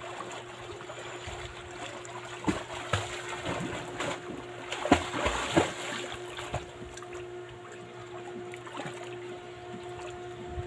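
Water splashing and sloshing, with several sharper splashes near the middle, over a steady low hum.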